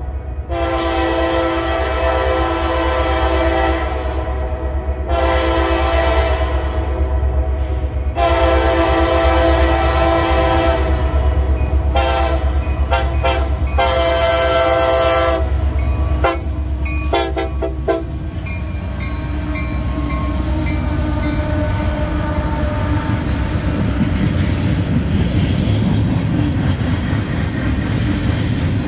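Freight diesel locomotives' air horn sounding a series of long blasts and several short ones for a grade crossing as the train approaches. From about two-thirds of the way through, the locomotives pass and loaded coal hopper cars roll by with a steady rumble and clatter of wheels on the rails.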